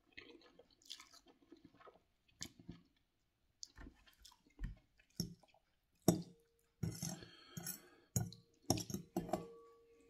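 A person slurping and chewing a mouthful of instant ramen noodles, in irregular wet bursts, with a metal fork clinking against a glass bowl several times in the second half.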